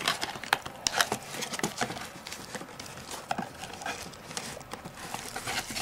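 A hand rummaging in a cardboard box and its packaging: irregular sharp knocks, taps and rustles of cardboard being handled.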